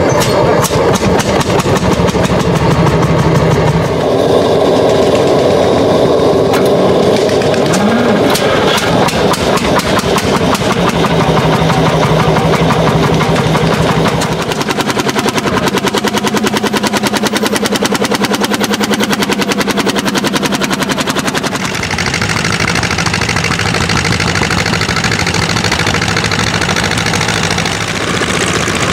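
Vintage Landini single-cylinder two-stroke hot-bulb (testa calda) tractor engines running with a steady, even exhaust beat. The sound changes abruptly a few times as different tractors are heard.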